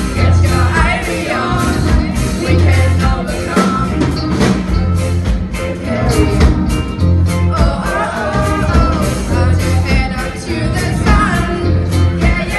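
Live band performing, with women singing together over a steady drum beat and bass.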